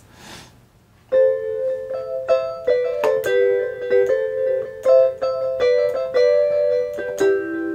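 Yamaha Reface DX FM synthesizer being played with a plucked, electric-piano-like patch: a melody of struck notes over held notes, starting about a second in.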